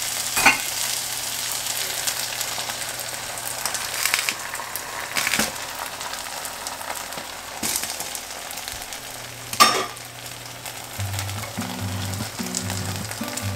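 Shredded potatoes sizzling steadily as they fry in a nonstick pan, with a few sharp clicks and knocks along the way. Soft background music comes in near the end.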